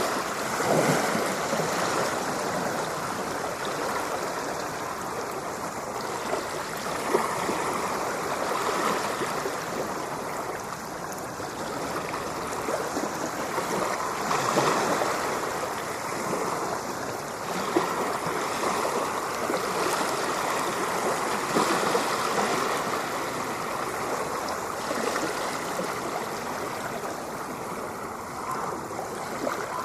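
Ocean waves: a continuous rush of water that swells and eases every few seconds, with a couple of brief sharper splashes.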